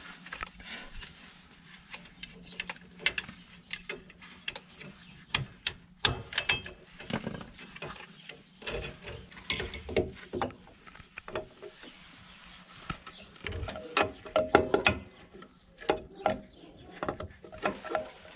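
Irregular metallic clicks, clinks and knocks of hand tools and steel drum-brake hardware (springs, retaining pins and shoes) being worked loose on a van's rear brake backing plate, a few strikes ringing briefly. A faint steady hum runs underneath.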